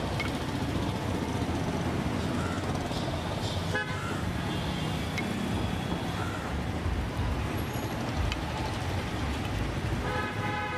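Street traffic: a steady rumble of passing vehicles with car horns honking, one horn starting to sound near the end.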